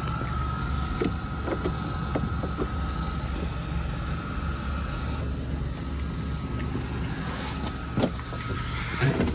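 Steady low hum of a vehicle engine idling nearby, with a thin high whine over it, light clicks and a couple of knocks near the end.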